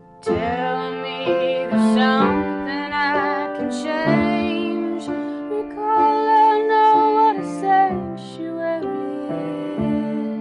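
A woman singing, with vibrato, over sustained keyboard chords; her voice comes in strongly just after the start.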